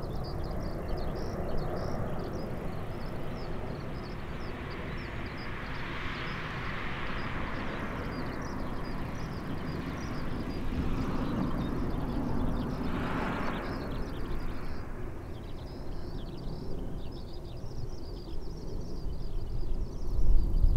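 Distant rumble of a four-engined Airbus A340's CFM56 turbofans as the airliner climbs away overhead, swelling and fading in waves, with fast high chirping throughout.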